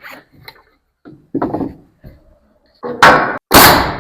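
Light knocks as a wood wall board is handled into place, then two loud sharp impacts about half a second apart near the end, each ringing out briefly, as the board is nailed to the wall.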